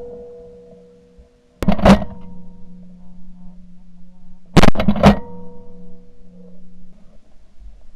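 Two shotgun blasts about three seconds apart, recorded from a barrel-mounted camera: one about one and a half seconds in, and a second near the middle that is followed by a quick run of further sharp cracks. A faint steady hum runs underneath.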